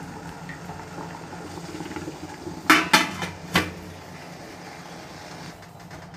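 Steel idli pot and its plates clanking: three sharp metal clanks about three seconds in, as the pot is closed up for steaming. A steady hiss of water boiling in the pot runs underneath.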